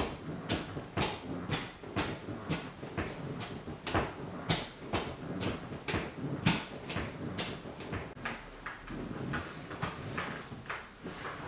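White sneaker toe tapping on a wooden floor: a run of sharp taps, roughly two a second, with a short lull about eight seconds in.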